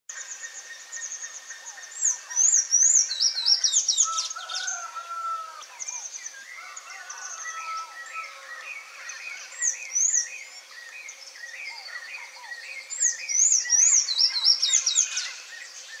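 Several songbirds calling and chirping at once, a busy mix of short high whistled notes. There are louder bursts of quick rising-and-falling chirps about two to four seconds in, once near ten seconds, and again from about thirteen to fifteen seconds.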